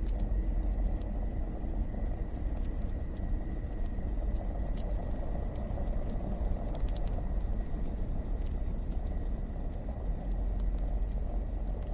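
Crackling fire: scattered sharp pops and snaps over a steady low rumble and a continuous high hiss with fine rapid ticking.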